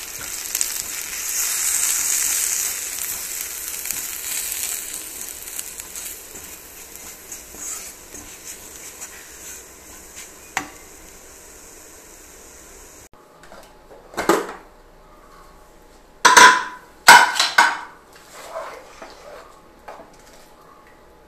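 Onions and spice powders sizzling in oil in a non-stick pan while a wooden spatula stirs them. Partway through the sizzle cuts off, and a few loud metal clanks follow as a pressure cooker is opened.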